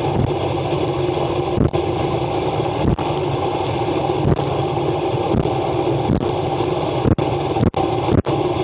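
Steady rush of wind over an action camera's microphone on a road bike descending at about 70 km/h on wet asphalt, mixed with tyre hiss, with occasional brief thumps. Near the end the sound cuts out for an instant three times.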